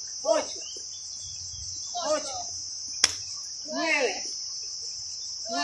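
Insects chirring steadily and high-pitched, with a woman's voice calling out short sounds about every two seconds, in time with exercise repetitions, and one sharp click about three seconds in.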